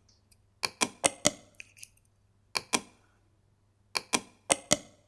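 Computer mouse clicking in quick pairs, about ten clicks in four groups, as supports are placed on a 3D model in software.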